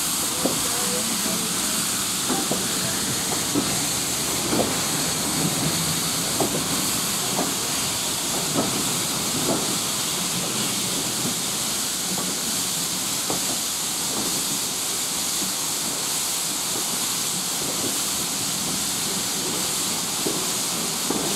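Steady hiss of steam drifting around the carriages of a steam-hauled train as it pulls slowly out of the station, with light knocks from the train about once a second.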